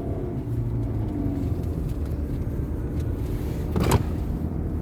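Steady low road and engine rumble of a car driving, heard from inside the cabin. A short sharp click comes about four seconds in.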